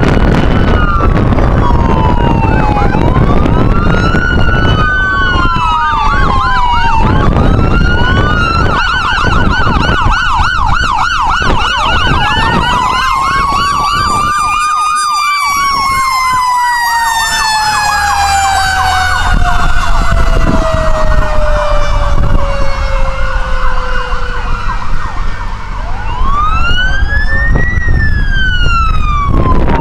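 Ambulance and fire engine sirens passing close by. Slow wails alternate with a rapid yelping warble, then after about halfway one long tone slides steadily down in pitch as the vehicles go by, and near the end another wail rises and falls from a following truck. A low vehicle rumble runs underneath.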